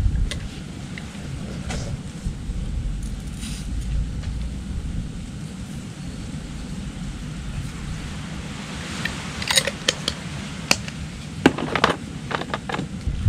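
Clicks, knocks and rustling of plastic as camping cooking gear is handled, clustered near the end, over a steady low wind rumble on the microphone.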